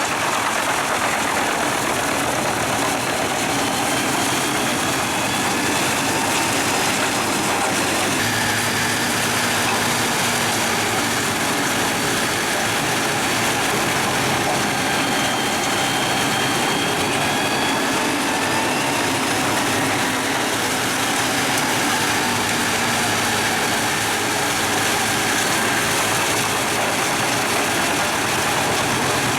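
Pezzolato PTH 1400/1000 drum wood chipper, powered by its truck's 730 hp Scania engine, running with a loud, steady, even noise and a faint high whine.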